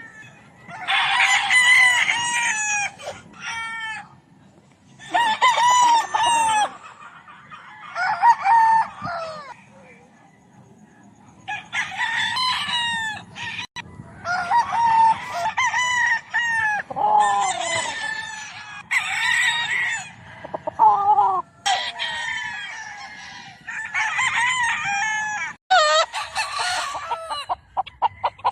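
Several gamefowl roosters crowing one after another, about a dozen crows, some overlapping, with short pauses between them.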